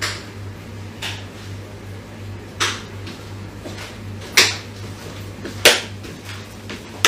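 Six sharp clacks and knocks spaced irregularly about a second apart, the loudest two in the second half, over a steady low hum.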